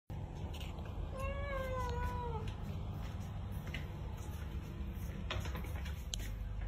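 A cat meowing once: a single drawn-out meow about a second in that dips slightly in pitch at the end. A few faint clicks follow near the end.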